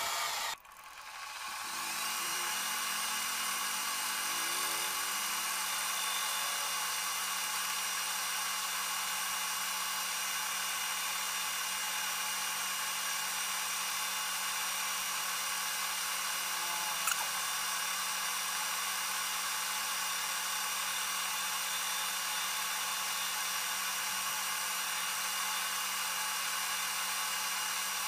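Manual metal lathe running, its tool turning down a metal shaft: a steady whine with several constant tones over a hiss. The sound drops out sharply about half a second in and comes back over the next second. A single click comes a little past halfway.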